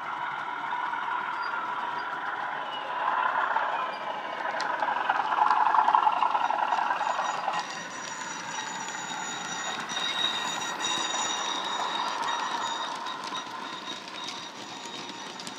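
Bachmann Class 37 model locomotive's factory DCC sound decoder playing a Class 37 diesel engine sound through an upgraded top speaker and the original megabass speaker as the loco runs past with wagons. It is loudest between about three and seven seconds in, and thin high steady tones join from about ten seconds in.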